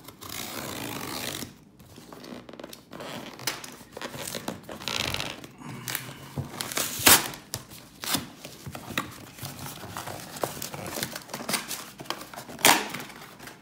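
Snap-off utility knife drawn along the packing tape of a cardboard shipping box, then tape and cardboard flaps being torn and crinkled open by hand, with scattered knocks and clicks from handling the box. The loudest knocks come about seven seconds in and near the end.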